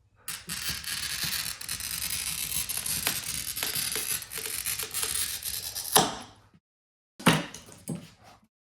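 A small wheel glass cutter scoring a curved line into window glass, a steady gritty scratching for about six seconds that ends in a sharp click. Then a loud knock and a smaller one near the end.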